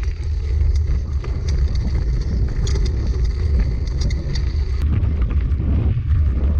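Bicycle rolling over a gravel driveway with a heavy low rumble from wind and vibration on the bike-mounted action camera, and scattered clicks and rattles from the tyres on loose gravel.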